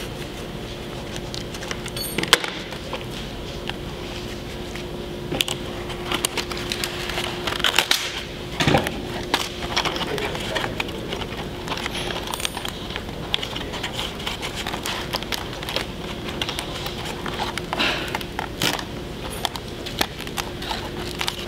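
Foam board being handled and pressed into shape, with scattered crackles and light knocks, over a steady faint hum.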